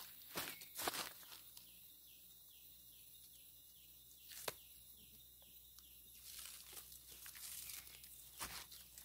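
Footsteps crunching on dry leaf litter in the first second or so, then after a quiet spell the soft scraping of a rubber-tapping knife shaving a thin strip of bark along the tapping cut on a rubber tree.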